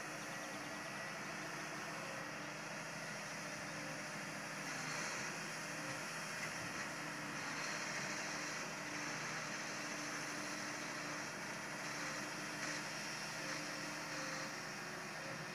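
Case IH Quadtrac four-tracked tractor's diesel engine running steadily as the tractor works across the field.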